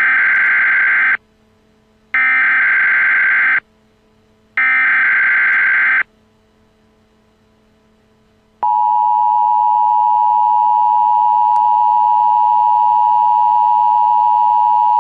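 Emergency Alert System header: three bursts of digital data tones, each a little over a second long with about a second between them. Then, about nine seconds in, the steady two-tone EAS attention signal begins.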